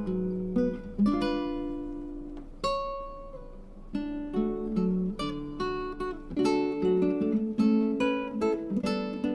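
Background music: acoustic guitar plucking and strumming a gentle melody, with a sparser passage of single ringing notes a few seconds in.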